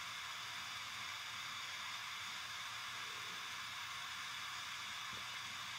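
Pocket jet-torch lighter burning with a steady hiss while its flame heats a twisted wire joint to melt solder.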